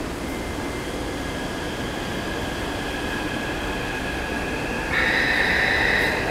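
Underground metro station with trains standing at the platform, a steady rumble and hiss. About five seconds in, a loud, steady high-pitched warning tone starts abruptly: a Taipei Metro door-closing alert signalling that the train is about to depart.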